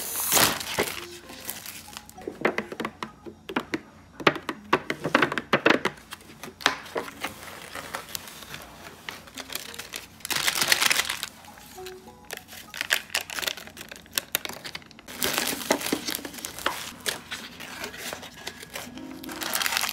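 Plastic film and foil crinkling in repeated bursts as instant cup noodles are unwrapped, the foil lid peeled back and a seasoning sachet torn open, over background music.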